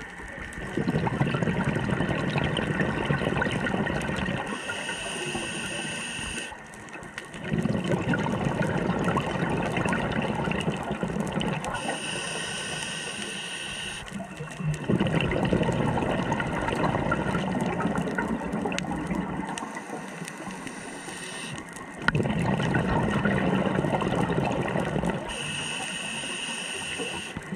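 Scuba diver breathing through a regulator underwater: long rumbling bursts of exhaled bubbles, each followed by a shorter hissing inhalation, about four breaths in slow succession.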